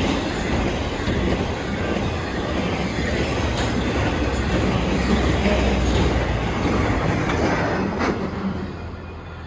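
Intermodal freight cars carrying double-stack containers and highway trailers rolling past: a steady rumble of steel wheels on rail with a few sharp clicks. The sound fades near the end as the cars move away.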